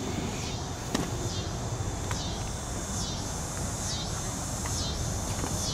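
Insects calling outdoors: a high-pitched pulsed call that repeats a little more often than once a second over a steady low rumble of outdoor background noise, with a single sharp click about a second in.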